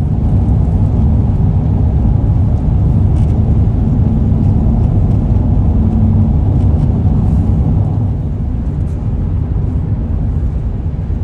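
Steady road and engine noise of a car driving at speed, heard inside the cabin as a loud, even low rumble.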